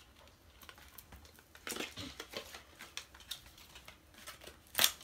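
Handling noise from a small plastic slime jar and its cardboard sleeve being pulled off and turned in the hands: scattered light clicks, scrapes and rustles, with one sharper tap near the end.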